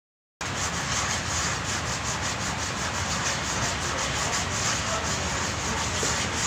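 Sanding block rubbing back and forth over body filler on a pickup's fender, wet-sanding with water, in rhythmic rasping strokes about three a second. A brief silent gap at the very start.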